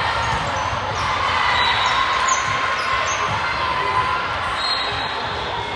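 Din of an indoor volleyball tournament hall: many overlapping voices with volleyballs bouncing off the court floor.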